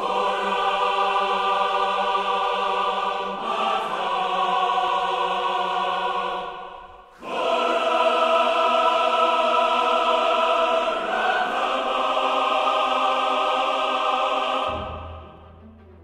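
Choral music: a choir singing long held chords, breaking off briefly about seven seconds in, then starting again and fading out near the end.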